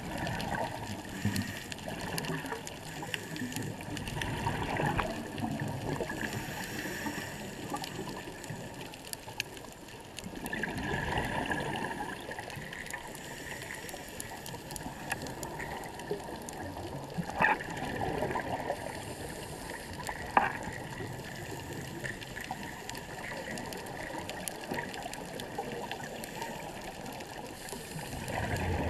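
Underwater bubbling and gurgling of scuba divers' exhaled breath, swelling every several seconds, with two short sharp sounds a few seconds apart about two-thirds of the way in.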